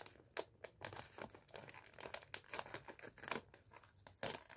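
Plastic candy pouch crinkling as it is torn open by hand: a run of small, irregular crackles, a little louder near the end.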